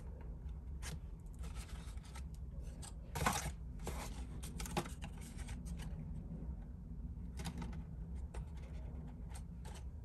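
Fingers rubbing and pressing a die-cut card box along its glued seams: scattered short paper rustles and scrapes, the loudest about three seconds in, over a steady low hum.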